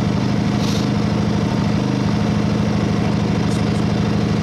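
Ryobi 2300-watt inverter generator's small four-stroke engine running steadily seconds after a cold start, still on its cold-start setting while it warms up.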